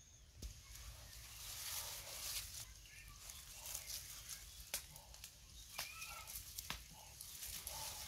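Turkey hen on her nest giving a few short calls in the second half, among faint rustling and a few sharp clicks.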